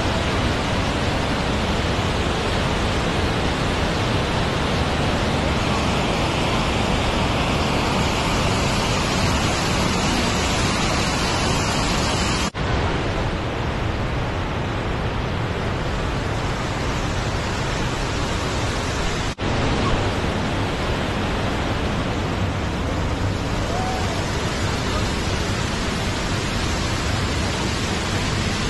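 Steady, loud rushing noise with no distinct events, broken by two very brief dropouts about twelve and nineteen seconds in.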